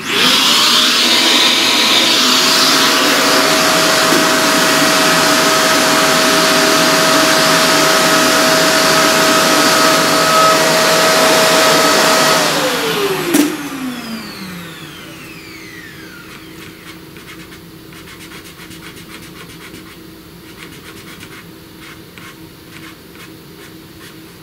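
Vacuum cleaner switched on, running with a steady whine over a loud rush of air for about twelve seconds, then switched off with a click and winding down in falling pitch, used to clear pastel dust off the drawing.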